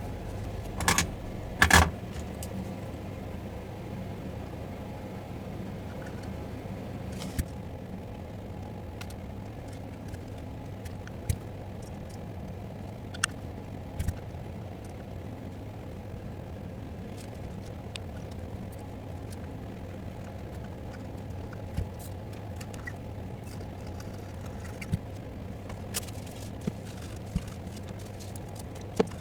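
Small tools and parts being handled on an electronics repair bench: scattered sharp clicks and taps, the loudest about two seconds in, over a steady low hum.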